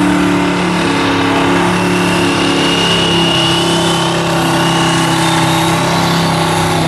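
Super stock diesel pulling truck's engine held at high revs under heavy load as it drags the pulling sled, a steady drone with a faint high whine slowly rising in pitch.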